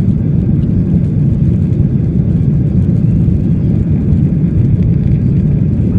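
Boeing 737 cabin noise during the climb after takeoff: a steady, loud, low rumble of the engines at climb power and the rush of air, heard inside the cabin.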